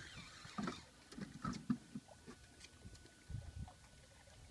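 Faint, scattered knocks and low thumps aboard a small fishing boat, with a short hiss near the start.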